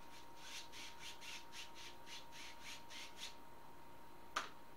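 Wide bristle brush scrubbing wet blue paint across a canvas in short quick strokes, about five a second, which stop after about three seconds. A single sharp tap near the end.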